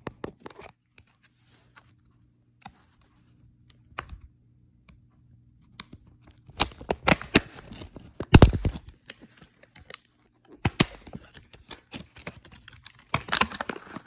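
Retail packaging being cut and torn open by hand: scattered clicks at first, then bursts of tearing and crinkling from about six seconds in and again near the end, with a heavy thump in the middle.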